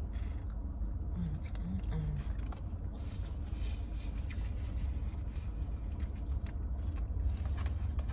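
Eating in a parked car: a fork scraping and clicking in a takeout container and chewing, over a steady low rumble inside the cabin.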